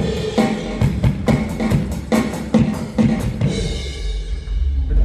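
Live rock band with a drum kit playing a steady beat of kick and snare hits, about two to three a second. The drums stop about three and a half seconds in and a final held chord rings out, the end of the song.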